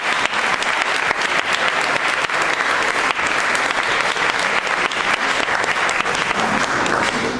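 Theater audience applauding, many hands clapping steadily, starting to fade at the very end.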